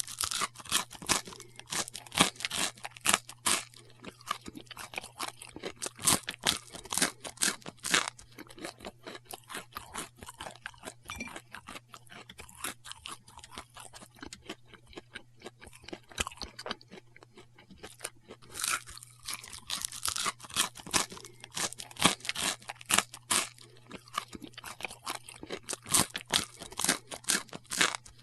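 A man chewing: a rapid, irregular string of sharp crackling chews that thins out and grows quieter for several seconds midway, then picks up again.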